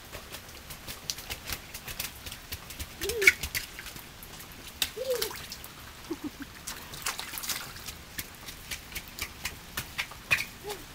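Rain dripping and tapping: many scattered sharp drops over a faint hiss. Three or four short, low rise-and-fall calls come through around the middle.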